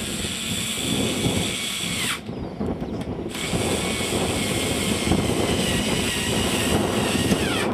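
Electric screwdriver with a hex bit running steadily on a bolt in a model helicopter's rotor head. It winds down and stops about two seconds in, starts again about a second later, and runs until near the end.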